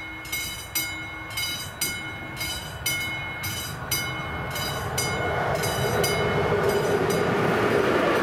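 Classic mechanical level-crossing bell on AŽD 71 warning lights, striking steadily about twice a second. From about five seconds in, an approaching electric locomotive-hauled train adds a growing rushing noise that drowns out the bell as the locomotive reaches the crossing.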